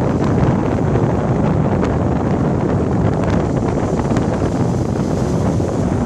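Wind buffeting the microphone, steady and loud, with small waves breaking and washing up a sandy beach beneath it.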